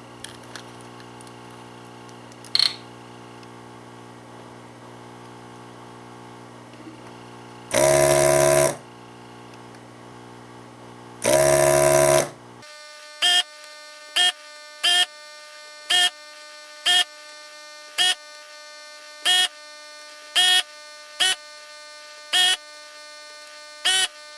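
Desoldering gun's vacuum pump buzzing as it sucks molten solder from a chip's through-hole joints: two runs of about a second each, then a string of short buzzes, roughly one a second, one per joint. A steady hum sits underneath.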